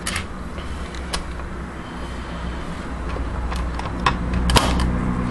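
Porthole door of a Rex RL12X front-loading washing machine being pushed shut: a few light knocks, then a sharp latching click about four and a half seconds in, over a steady low hum.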